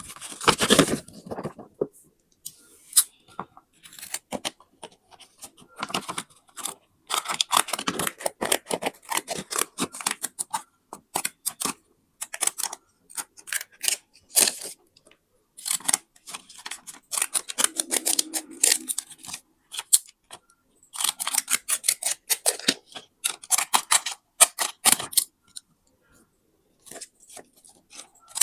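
Scissors cutting paper: runs of quick crisp snips lasting a few seconds each, broken by short pauses.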